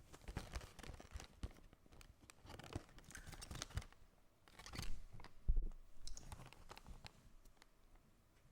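Plastic food packaging being handled, torn open and crinkled in irregular rustling bursts, with a few sharper knocks about halfway through.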